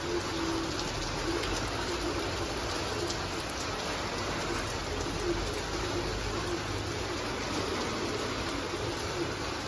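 Heavy rain pouring steadily, an even rushing hiss that doesn't let up. Underneath it a faint low tone comes and goes, repeating every second or so.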